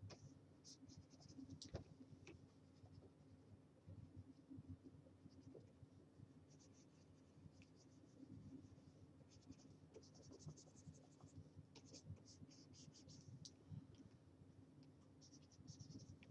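Faint scratching of a stylus nib drawn across a graphics tablet in short clusters of strokes, over a low steady hum.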